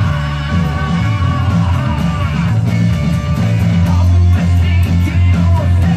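Rock music with a steady bass line, electric guitar and singing.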